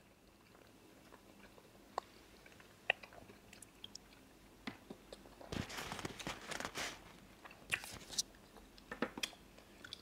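Fried plantain being chewed, faint and close: a few scattered small clicks at first, then steadier chewing and biting sounds from about halfway through.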